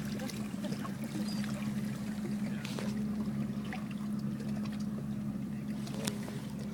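Steady low hum of the boat's idling engine, with water trickling and lapping at the hull and a few faint ticks.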